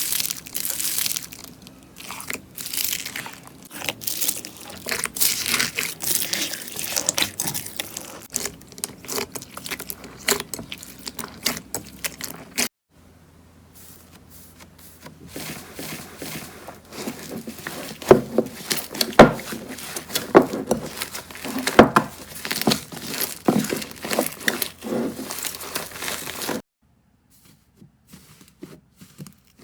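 Slime being squeezed, pressed and stretched by hand, giving dense crackling, popping and crinkling clicks. The sound changes abruptly about 13 s in and again near the end, where it drops to faint clicks.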